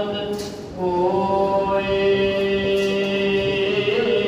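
Sikh devotional singing (kirtan): a man's voice, after a short break, holds one long steady note from about a second in.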